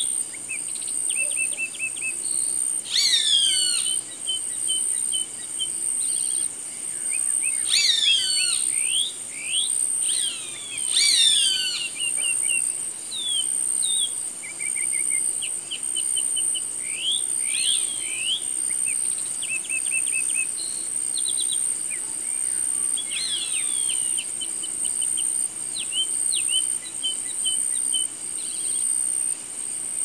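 A hawk gives descending screams several times, a few seconds apart, over chirps and short trills from other birds. A steady high insect drone runs underneath.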